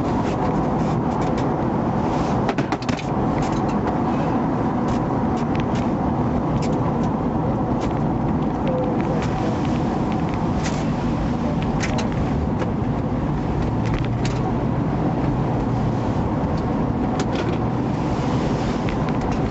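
Steady running noise of a car inside its cabin, with scattered small clicks and knocks.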